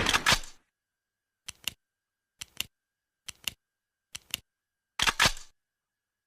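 Mossberg 500 pump-action shotgun: the tail of a shot dies away, then the pump is racked four times, each a quick two-click back-and-forward slide, followed about five seconds in by a louder bang with a short decay.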